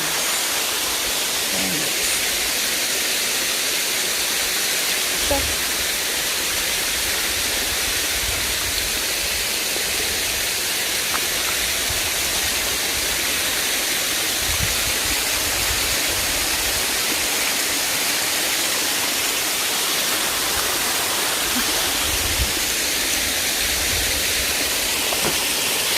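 Waterfall pouring, a steady rushing of falling water, with a few brief low rumbles underneath.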